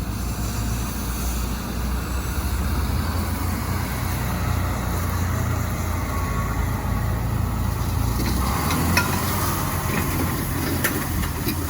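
Heavy farm machinery engine running steadily, a low drone, with a few light clicks near the end.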